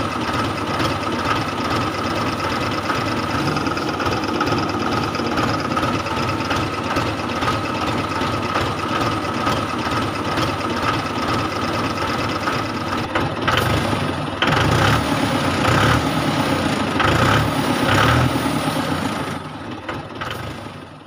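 Steady engine-like running sound with a constant whine, as of the toy tractor's motor or a tractor engine sound laid under it. About 13 seconds in it turns louder and lower with an uneven throb, then fades out at the end.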